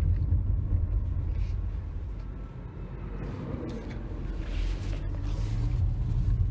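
Low rumble of a car's road and engine noise heard inside the moving cabin as a large farm vehicle passes close by, swelling again toward the end. A few short rustles come from the phone being handled.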